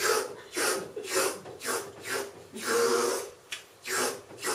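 Rakugo storyteller miming the slurping of soba noodles with his mouth: a quick run of short slurps, about two a second, with one longer slurp near the middle.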